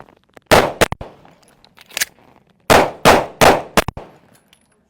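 Gunshots fired in a timed range drill: one shot, a pause of over a second, another, then three fast shots. Short sharp clangs follow some of the shots.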